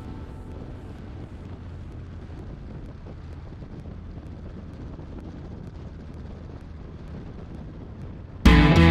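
Wind noise on the microphone over the steady running of a Kawasaki Vulcan 1600's V-twin engine at cruising speed. Loud rock music with guitar cuts in abruptly near the end.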